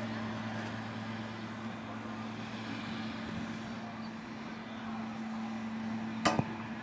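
Steady low hum over even outdoor background noise, with one sharp knock near the end.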